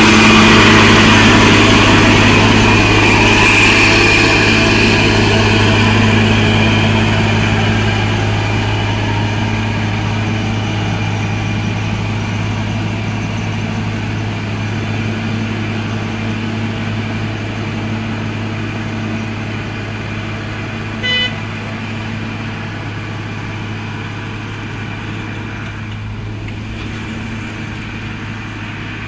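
A truck's engine running steadily under load, loudest at first and slowly fading as it moves off. About twenty seconds in there is a single short horn toot.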